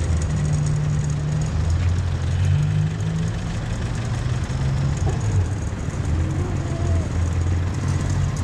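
Yamaha XTZ 250's single-cylinder engine running steadily with a low, even note.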